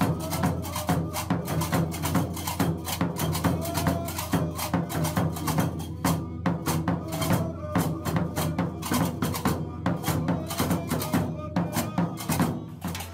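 Gnawa percussion: pairs of iron qraqeb (double castanets) clattering in a rapid, steady rhythm over two large double-headed tbel drums beaten with sticks.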